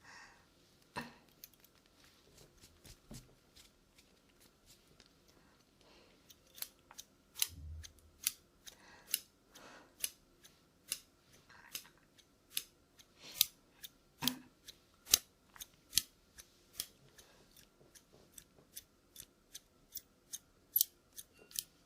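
Scissors snipping close to the microphone in an ASMR haircut roleplay: crisp, separate snips, a few at first, then two or three a second from about six seconds in.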